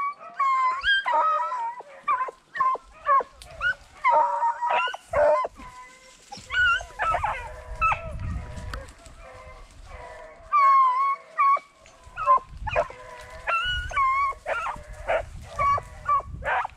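A pack of beagles baying and barking, several dogs' voices overlapping in repeated short bawls and howls, as hounds give tongue while running a rabbit.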